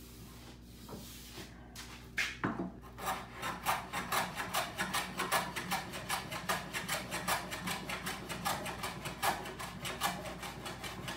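Small metal rabbet plane taking rapid short strokes on a soft maple tenon, about five a second from about two seconds in. It is trimming the tenon's cheek because it was too tight for its mortise.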